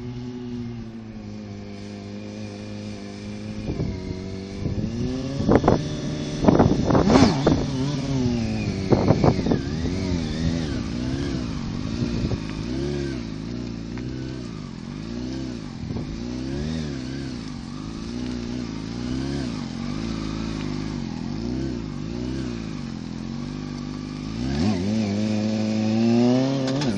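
Sport motorcycle engine, first running steadily, then revved in several sharp throttle blips. After that the throttle is worked so the pitch rises and falls about once a second, and near the end it accelerates with a rising pitch.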